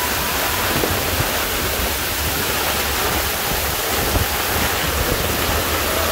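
Tornado winds and driving rain making a steady, loud rushing noise, with wind rumbling on the microphone.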